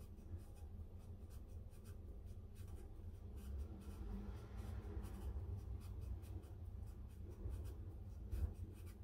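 Freshly sharpened usuba knife shaving a daikon radish into one thin continuous sheet (katsuramuki), the blade working up and down in small strokes while the radish is turned: a faint, crisp scratching made of many quick irregular ticks, over a low steady hum.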